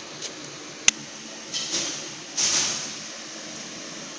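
A sharp click about a second in, then two short bursts of hissing, the second louder and about half a second long, from the welding manipulator as it is worked from its pendant controller.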